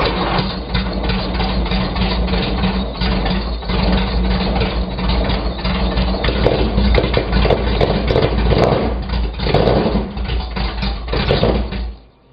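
A large engine running with an even, pulsing beat after a cold start. It fades out near the end.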